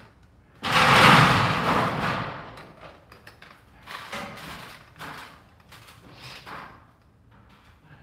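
A sudden loud bang about half a second in that dies away over a second or so, followed by several lighter knocks and clunks.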